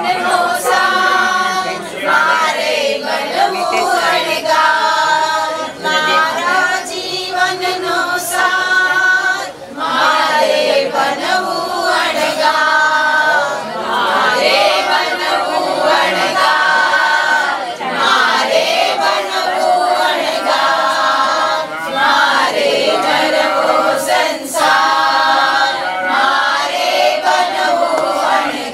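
A group of voices singing a devotional song together, unaccompanied, in continuous phrases.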